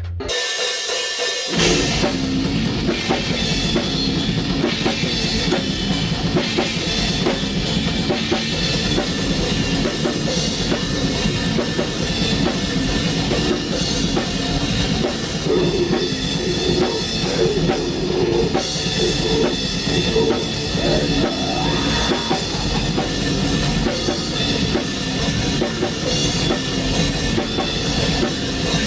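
Black metal band rehearsing: a drum kit with dense cymbals and bass drum under the rest of the band, starting up at the beginning and running at full strength from about a second and a half in.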